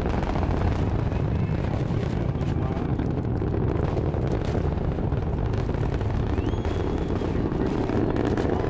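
Rumble of the Ares I-X rocket's solid rocket first stage in powered flight, heard from about three miles away: a loud, steady, deep rumble with no break.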